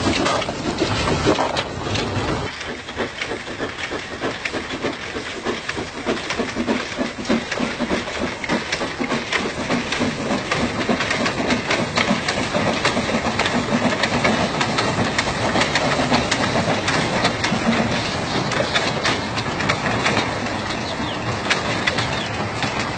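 Narrow-gauge steam train running past at close range, its wheels clattering over the rails in a continuous stream of sharp strokes.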